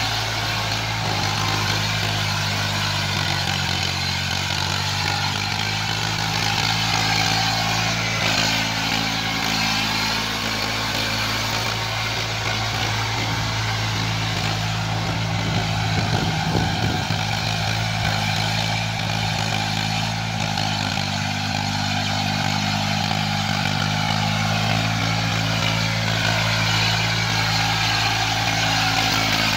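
Eicher 480 tractor's diesel engine running steadily under load while it pulls a rotavator through wet paddy mud.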